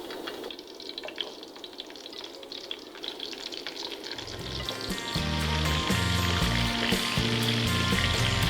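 Pieces of bitter melon sizzling and crackling as they pan-fry in oil. About halfway through, background music with steady bass notes comes in and grows louder.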